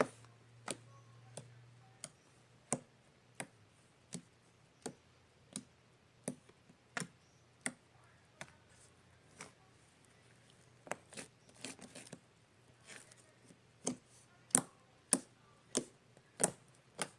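Slime being pressed and worked by hand, giving sharp clicks and pops about one and a half a second, with a quicker run of smaller pops about eleven seconds in.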